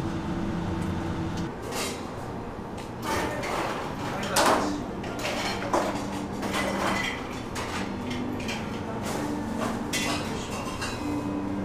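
Background food-stall noise: a steady low hum that cuts off about one and a half seconds in, then scattered clatters and knocks of dishes and utensils with faint voices.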